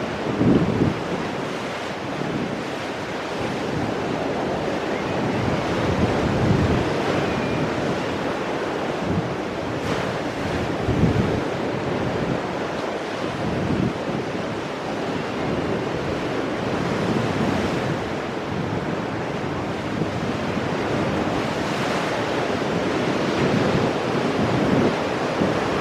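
Ocean waves breaking on rocks and washing back, with surges every few seconds over a steady wash of surf. Wind buffets the microphone.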